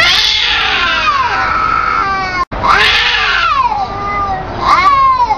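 Two domestic cats, a ginger and a black-and-white, caterwauling at each other in a face-off. Long, drawn-out yowls rise and fall in pitch, with a brief gap in the sound about halfway and a fresh yowl near the end.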